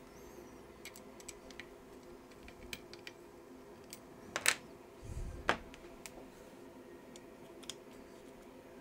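Small clicks and taps of a graphics card's circuit board being handled and set down onto its metal heatsink, with a sharp click about four and a half seconds in, followed by a soft thump and another click. A faint steady hum lies underneath.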